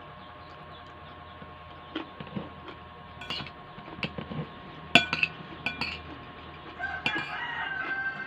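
Metal fork and spoon clicking and scraping against a ceramic bowl of rice and cabbage during eating, a handful of sharp clinks with the loudest about five seconds in. Near the end a long drawn-out animal call, held for about two seconds, sounds in the background.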